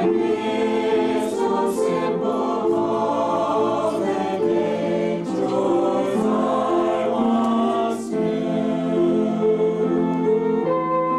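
A small group of men's and women's voices singing a Christmas carol together without accompaniment. Near the end a flute comes in with steady held notes.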